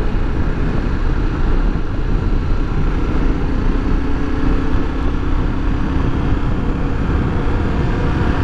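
Honda XRE300's single-cylinder engine running while the motorcycle rides along at a steady speed, with wind rushing over the microphone. About three seconds in the engine settles into a steady hum.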